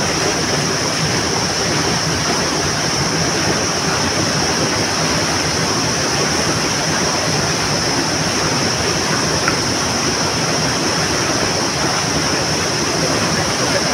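Steady rushing of a river flowing close by, an even wash of water noise with a constant high hiss over it.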